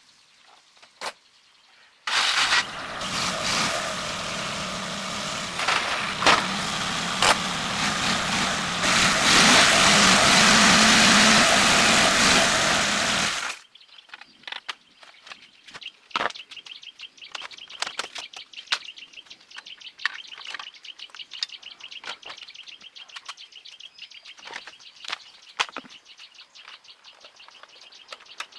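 A motor vehicle's engine runs loudly for about eleven seconds, getting louder near the end, then stops suddenly. Afterwards birds chirp over many scattered light clicks and taps.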